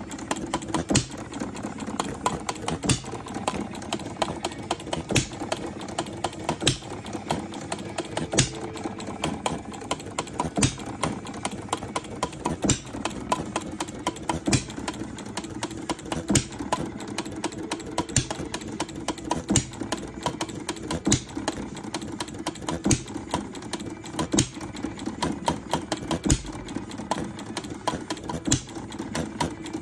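Scale-model Jacobson hit-and-miss gas engine running: a fast, steady clatter of small ticks from its valve gear and moving parts, with a louder sharp pop every second and a half to two seconds where it fires, coasting on its flywheels in between.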